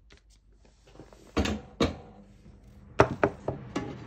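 After a quiet first second, a run of sharp knocks and clatters of objects being handled and set down, about half a dozen in all.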